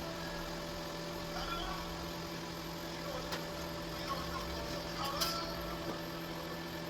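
A steady machine hum with a few steady tones, and a sharp click about five seconds in.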